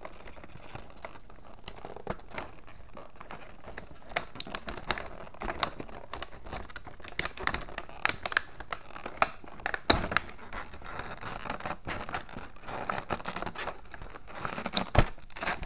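Clear plastic blister packaging crinkling and crackling as it is handled and lifted out of the box, with irregular sharp clicks; the loudest snaps come about two-thirds of the way through and near the end.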